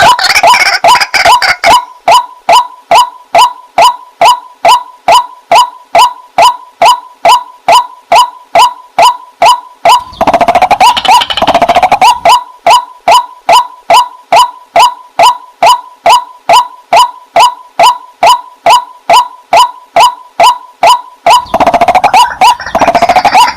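White-breasted waterhen calling: a long run of short notes repeated about two to three times a second. It breaks into louder, harsher chattering about ten seconds in and again near the end.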